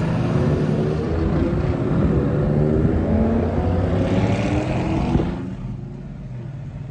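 Performance car engine under hard acceleration, its pitch climbing for a few seconds, then the throttle lifts about five seconds in and the sound drops away.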